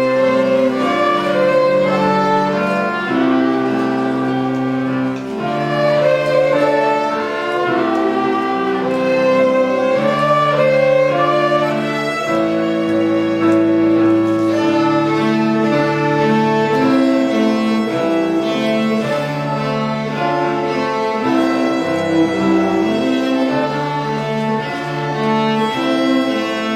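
A beginner string group plays a tune on violins with lower bowed strings beneath. The notes are held and move in steps about every second, over a steady bass line.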